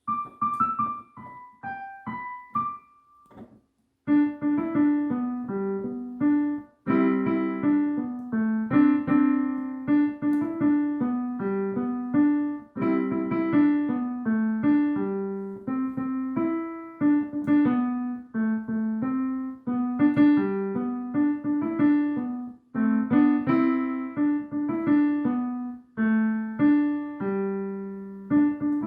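Piano playing: a short, sparse phrase of single treble notes, a brief pause, then steady chords with a moving bass line from about four seconds in.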